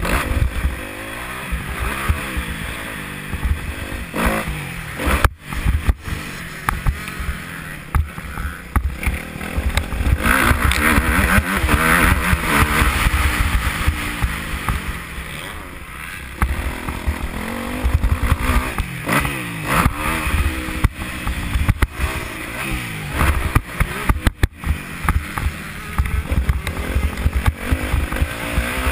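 Motocross bike engine revving up and down as it is ridden hard round the track, its pitch rising and falling with the throttle, over heavy wind rumble on a helmet-mounted microphone.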